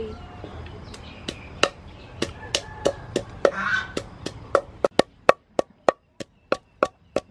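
Wooden pestle pounding chilies in a wooden mortar: a steady run of sharp knocks, about three a second.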